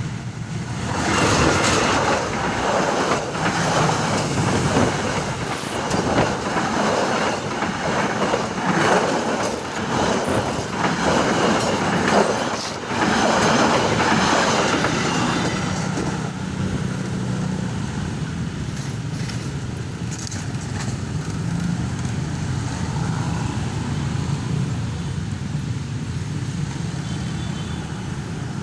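Train passing at speed, its wheels clattering rhythmically over the rails for about fifteen seconds, then settling to a steadier, lower rumble as it runs on.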